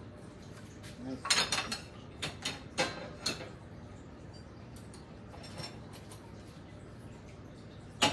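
Metal cutlery and dishes clattering and clinking as someone rummages through them by hand: a burst of sharp knocks from about a second in, then a couple more near the end.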